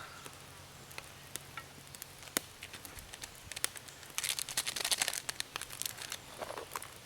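Small fire crackling with scattered sharp clicks, and a brief rustle of handling about four seconds in.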